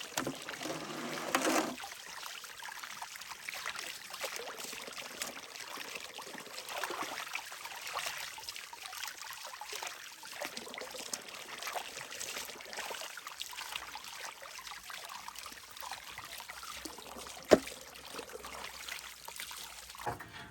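Water trickling steadily, with one sharp click near the end.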